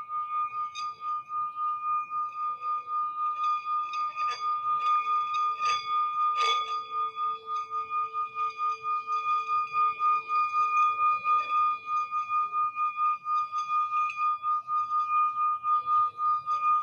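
Singing bowl sounding a sustained high ringing tone that pulses steadily in loudness. A few sharp strikes between about four and seven seconds in add a lower ringing tone, which fades out after a few seconds.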